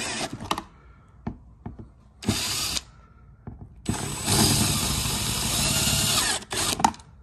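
Power drill boring through a welded-on metal piece inside a truck door to break it off, run in bursts: a short run that stops just after the start, a half-second burst about two seconds in, then a longer run of about three seconds from about four seconds in that stutters near the end.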